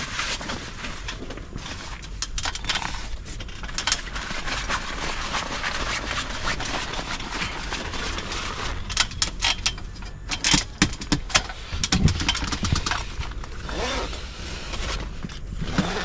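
Rustling and handling of a rooftop tent's canvas as a window flap is rolled up to be tied, with scattered small clicks and knocks that come thickest from about nine to twelve seconds in.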